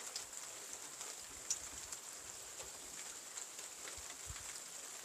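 Faint light-rain ambience: a steady hiss with scattered small drop-like ticks.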